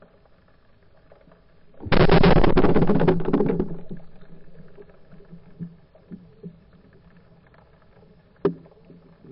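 Band-powered speargun fired underwater at an amberjack: a sudden loud burst about two seconds in, crackling and rattling as it fades over about two seconds. Scattered small knocks follow, then one sharp click near the end.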